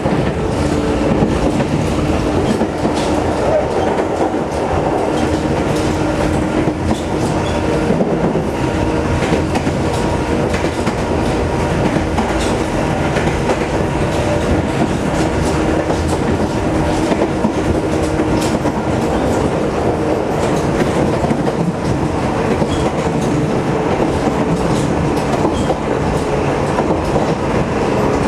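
Sangi Railway electric train running steadily, heard from inside the carriage: wheels rumbling on the track and clicking over rail joints, with a steady hum underneath.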